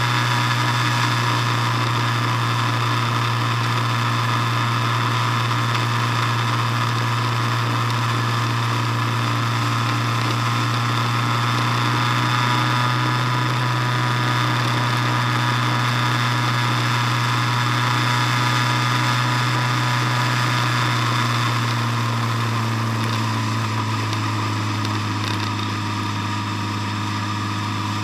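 Motor vehicle engine running at a steady cruise while driving on an asphalt road, an even drone with tyre and wind noise; the engine note drops a little about three-quarters of the way through as the vehicle eases off toward a junction.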